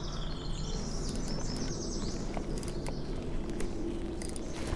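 Birds chirping over a steady low outdoor rumble, with a few small scattered clicks.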